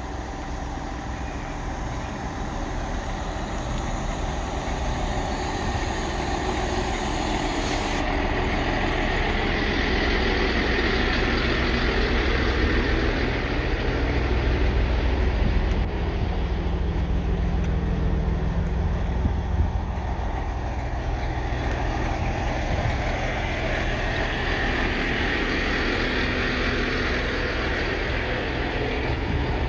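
Great Western Railway Class 165 diesel multiple unit running, a steady low diesel rumble with hiss; the sound changes about eight seconds in and again around sixteen seconds in.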